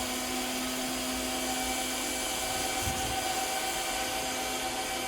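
Robot vacuum cleaner running: its suction fan makes a steady whirring hiss with a constant motor hum.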